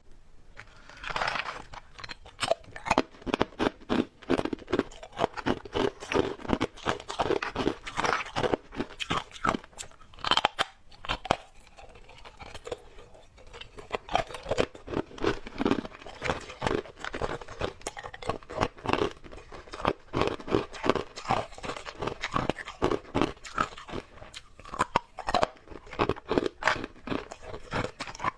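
Ice being bitten and chewed close to the microphone: a quick, uneven run of crisp crunches starting about a second in, thinning out briefly near the middle.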